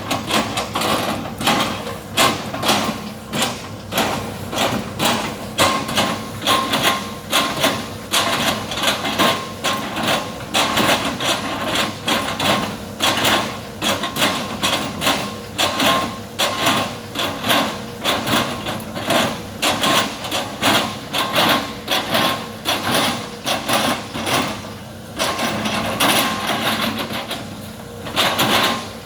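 Excavator working with its diesel engine running under a fast, even run of clanking knocks, about three a second, that falter near the end.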